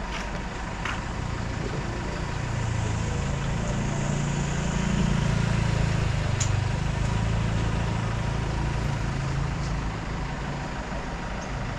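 A motor vehicle's engine running close by, its low hum growing louder a couple of seconds in and easing off again toward the end, over steady background noise.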